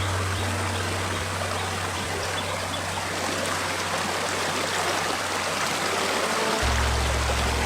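Forest stream flowing steadily, a continuous rush of water, with a low steady drone underneath that shifts lower near the end.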